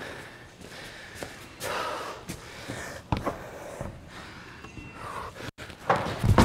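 A climber breathing hard after a bouldering attempt: he is out of breath, with a few light knocks along the way.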